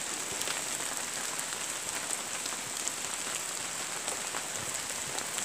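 Steady rain falling, an even hiss with many scattered sharp drop ticks.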